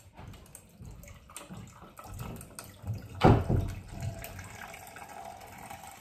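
Blended limeade being poured through a strainer over ice into a pitcher: a steady trickle of liquid, with one loud clunk about three seconds in.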